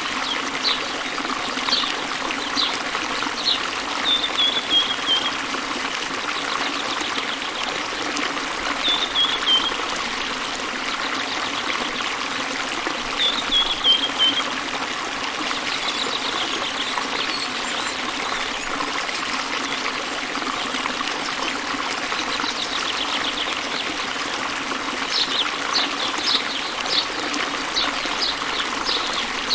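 Waterfall water running steadily, with small birds chirping over it: a few short falling phrases, and quick runs of chirps near the start and near the end.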